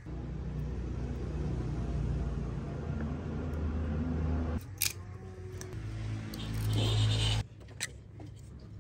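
Low, steady engine rumble. It drops away about halfway through with a sharp click, then swells again and cuts off suddenly near the end.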